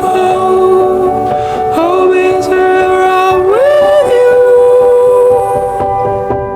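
Background pop song: a voice holds long sung notes over the backing, one note sliding up about halfway through.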